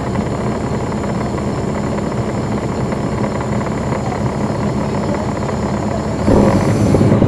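Caterpillar C13 ACERT diesel engine of a NABI 416.15 transit bus running steadily, heard from on board. Near the end a louder rush of noise lasts about a second and cuts off suddenly.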